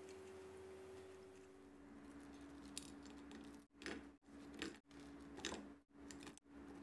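Near silence broken by a few faint, light clinks and taps of a wire strainer and metal tongs against a plate as fried bananas are set down and arranged.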